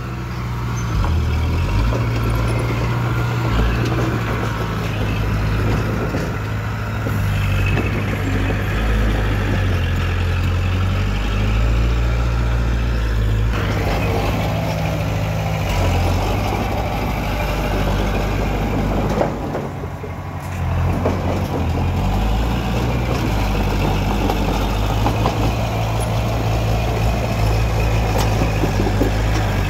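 Komatsu bulldozer's diesel engine running steadily under load as it pushes stone fill. It eases briefly about two-thirds of the way through, then picks up again.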